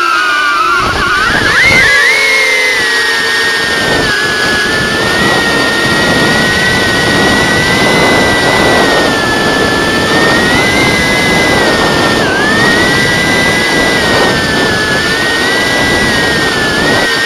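Micro FPV drone's motors and propellers whining in flight, the high pitch swaying up and down with throttle: a rise about a second in, a dip around two-thirds of the way through, and another rise and dip near the end.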